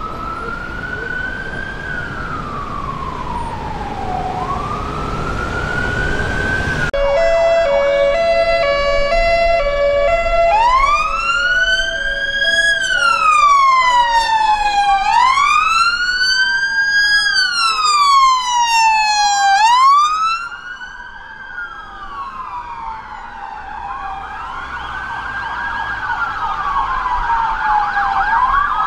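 Sirens of several London police vans and cars responding, their wails rising and falling out of step with one another. A quick stepped two-note pattern sounds for a few seconds about a quarter of the way in. The sirens are loudest in the middle, drop back around two thirds of the way through, then build again.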